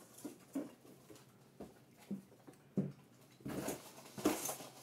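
Foam packing peanuts and cardboard rustling as hands dig through a shipping box: a few light taps and rustles, then louder rustling about three and a half seconds in.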